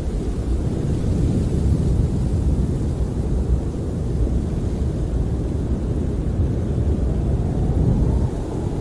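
Snowstorm wind blowing against a camper, heard from inside as a steady, deep rumble that surges slightly without letting up.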